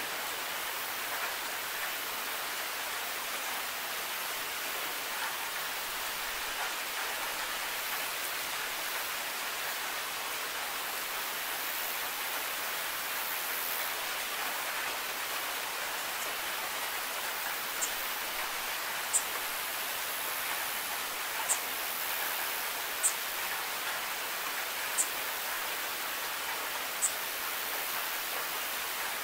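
Steady rain falling: an even hiss. In the last third, sharp high ticks stand out every second or two.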